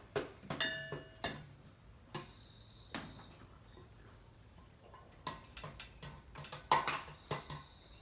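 A white dove bathing in a shallow rain puddle, flicking its wings through the water in two bursts of quick splashes, one at the start and a longer one from about five seconds in.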